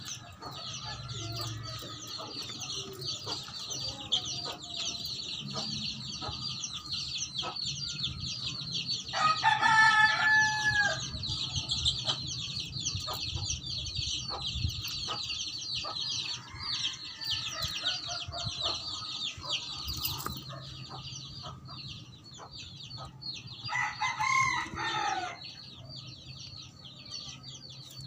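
A rooster crows twice, about nine seconds in and again near the end, over a steady high-pitched chirping in the background. Light taps and scrapes come from soil being worked by hand.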